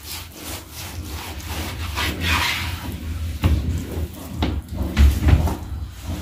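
Knife cutting raw camel meat on a cutting board, with scraping, rubbing and knocks of the blade and the meat being handled; the sharpest knocks come about three and a half and five seconds in.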